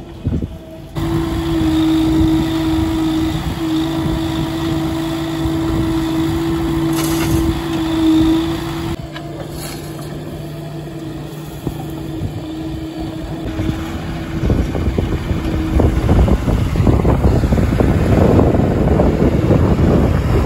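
Diesel engine of earth-moving machinery running with a steady hum at a constant pitch. It grows louder and rougher over the last few seconds.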